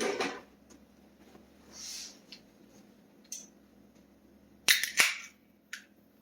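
A few sharp clicks over a quiet background: two loud ones close together near the end, with a fainter click before and after them and a brief soft hiss earlier.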